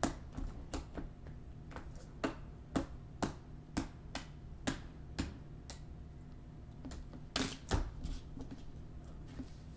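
A series of light, sharp clicks and taps, about two a second and unevenly spaced, with a quick cluster of louder ones about seven and a half seconds in.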